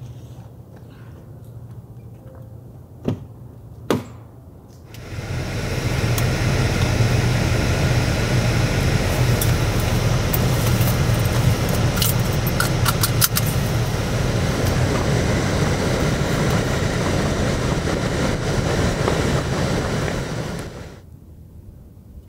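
Land Rover Discovery 4 running, heard from inside the cabin as a loud, steady noise with a low hum from about five seconds in until near the end. Two sharp knocks come just before it, and a few clicks in the middle come from a seatbelt being buckled.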